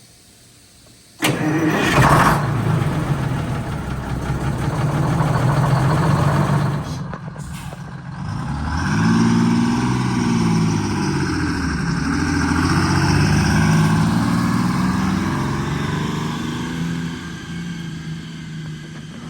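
Detroit Diesel 6-71 inline-six two-stroke diesel in a bus, cutting in suddenly about a second in and running loudly, its pitch rising and falling several times in the middle as it is revved and driven. It is running after its plugged fuel filters were replaced, under test for lost power.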